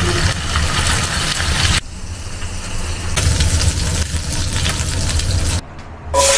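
Fish heads sizzling in hot oil in a wok over a steady low hum; the sizzle thins about two seconds in, picks up again, and drops out for a moment near the end.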